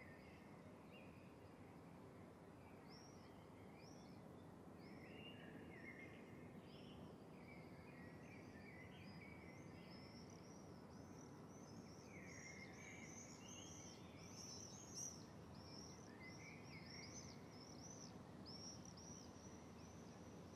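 Faint outdoor ambience: birds chirping, many short high calls repeating and getting busier about halfway through, over a low steady hiss.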